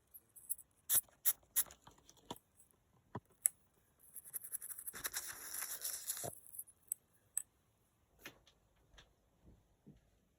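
Small sharp clicks and taps from handling a coin and tools while cleaning it, with a stretch of scratchy scrubbing lasting about two seconds near the middle.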